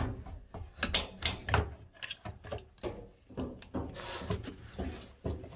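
New plastic drain pump assembly being handled and worked into place in a washing machine's base: a run of irregular clicks and knocks of plastic against the metal frame, with a short rubbing scrape about four seconds in.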